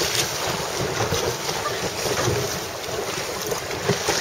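Wind buffeting the microphone on open water, with the wash and splash of small waves.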